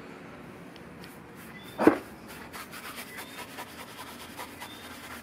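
A single loud knock a little under two seconds in, then a paintbrush scrubbing paint onto a rough rendered basin rim in quick, repeated rubbing strokes.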